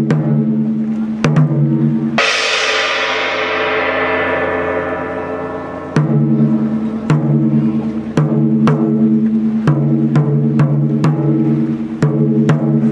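Japanese taiko drums struck in a quick, steady rhythm over a sustained low tone. About two seconds in, a single metallic crash rings out and fades over about four seconds before the drum strikes resume.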